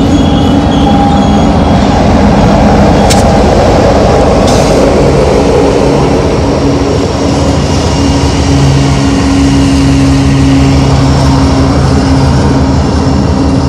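Union Pacific diesel-electric locomotives running in a mid-train group on a loaded coal train, passing close: a steady engine drone with a low hum, heavy wheels rumbling on the rails, and one sharp click about three seconds in.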